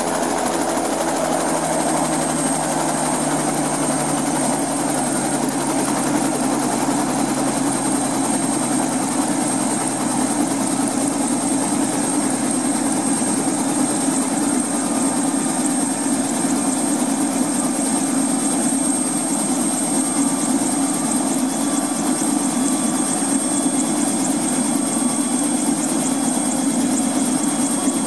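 Two-bladed turbine helicopter running on the ground at idle, rotor turning, with a steady engine noise and a thin high turbine whine that dips slightly in the first couple of seconds and then holds level.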